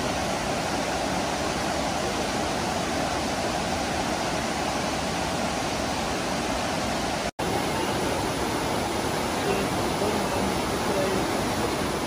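Waterfall cascades rushing steadily: a loud, even roar of water that breaks off for an instant about seven seconds in.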